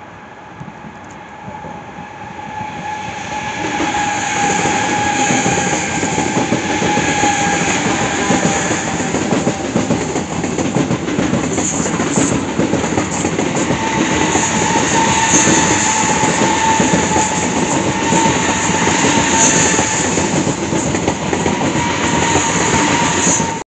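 ICE high-speed electric train passing close by on the track: its rolling noise builds over the first few seconds as it approaches, then holds steady with a high whine and hiss over it. The sound cuts off suddenly at the end.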